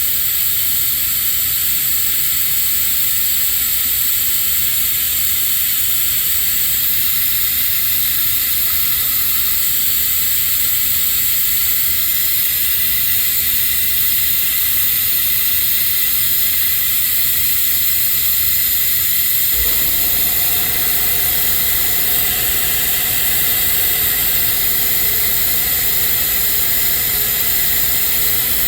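Air-powered vacuum tool hissing steadily as it sucks old, dirty brake fluid out of the master cylinder. About twenty seconds in, an air compressor kicks on and adds a lower, steady hum under the hiss.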